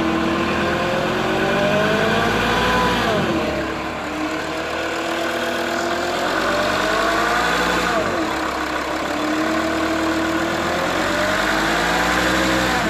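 Mercedes-Benz W211 E270 CDI's five-cylinder diesel engine revved slowly up and let back down three times, with a hum that the owner hears from about 1000 to 2000 rpm. The hum is there with and without the accessory belt and persists after a new oil pump, so its cause is still unknown.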